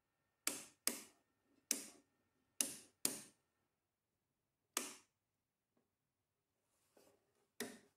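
Modular circuit breaker toggles in a household consumer unit being switched off one after another by hand: about seven sharp clicks, five close together in the first few seconds, then two more spaced out.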